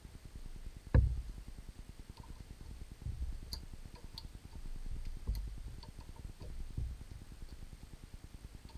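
Hex key working the clamping screws of a lathe's quick-change toolholder: metal clicks and light knocks, with a sharper knock about a second in and a few lighter thumps after.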